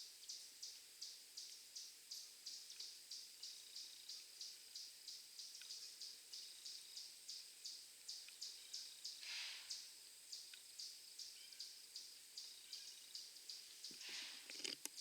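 Faint insect chirping in a steady rhythm, about three short high chirps a second. A short soft hiss comes about halfway through, and a few rustles and knocks near the end.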